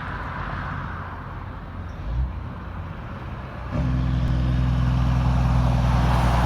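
Road traffic noise, then about four seconds in a heavy truck's engine comes in as a steady low drone that grows gradually louder as it approaches.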